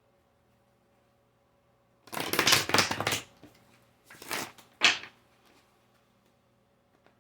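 A deck of tarot cards being shuffled: one burst of card noise lasting about a second, starting about two seconds in, then two shorter ones around the four- and five-second marks.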